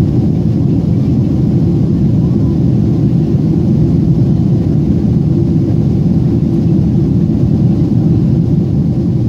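Steady, loud cabin noise of an airliner in flight: the even low rumble of engines and rushing air, heard from inside the cabin.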